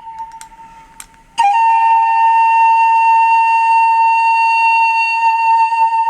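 Music played through an Earson Mammoth ER-160 Bluetooth speaker: a single high note held steadily fades away, followed by a couple of faint clicks, then a new note comes in loud about a second and a half in and holds.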